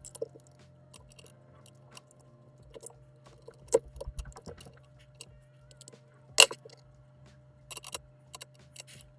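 Scattered small clicks, taps and scrapes of a screwdriver and wires being worked into the screw terminals of an L298N H-bridge board on a metal robot chassis, with two sharper clicks, the louder about two-thirds of the way through. A faint steady hum runs underneath.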